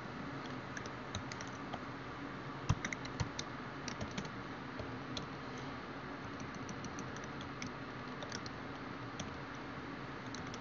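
Computer keyboard typing: scattered keystrokes in short runs, with one heavier stroke giving a low thud about three seconds in, over a steady low hiss of room noise.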